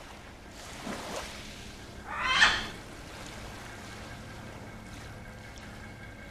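Sea waves washing ashore in a steady wash, with a single loud, short sound about two seconds in.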